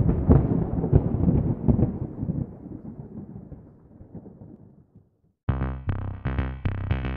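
Intro music: a deep, rumbling drum-like hit with a few further strikes, fading out over about five seconds. After a brief silence, electronic music with a steady drum-machine beat starts about five and a half seconds in.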